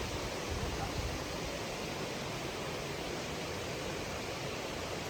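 Running water making a steady rush.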